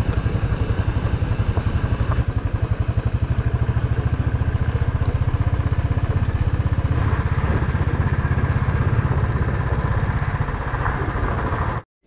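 Royal Enfield 350 single-cylinder motorcycle engine running at low riding speed, a steady, even pulsing beat that cuts off suddenly near the end.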